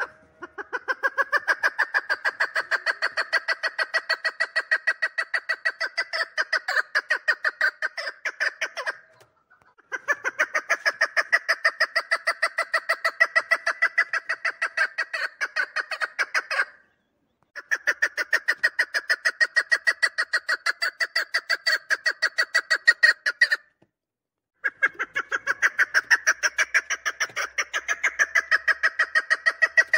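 Three-year-old chukar partridge calling in long runs of rapid, evenly repeated notes, about five a second, in four bouts of six to nine seconds each with short pauses between.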